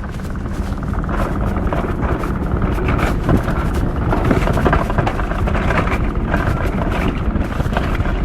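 Steady, loud rushing of wind buffeting the microphone.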